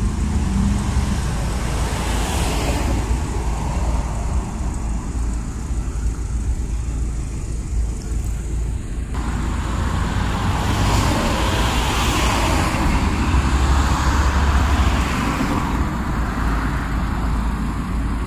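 Road traffic noise: a steady rumble of passing cars.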